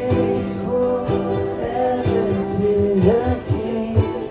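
Ukuleles strummed in a group, with a voice singing long held notes over an even beat.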